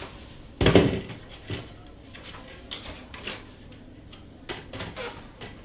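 Hard clacks and knocks from a monitor part being handled and held in place against the monitor: one loud knock about half a second in, then a series of lighter clicks.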